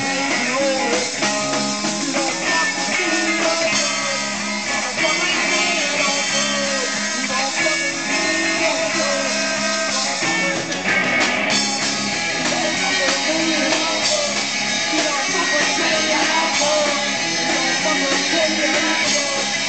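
Rock band playing live and loud, with amplified electric guitar and drums.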